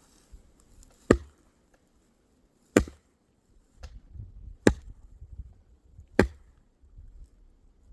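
Dry wood being chopped with a blade: four sharp blows, one every one and a half to two seconds.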